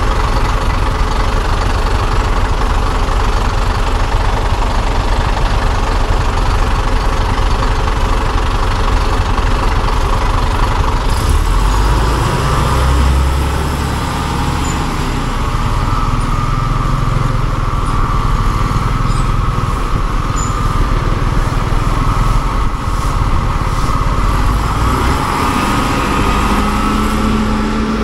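Scooter riding slowly in heavy city traffic: a steady mix of its own small engine and the diesel engine of a city bus close ahead. A deeper rumble swells about eleven seconds in.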